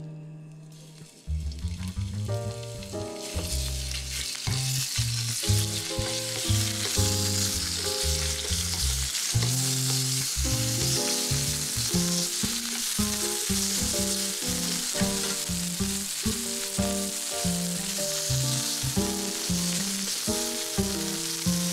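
Sliced pork loin sizzling in hot oil in a frying pan as it is spread and stirred with chopsticks. The sizzle builds up about three seconds in and then holds steady. Background music with a beat plays throughout.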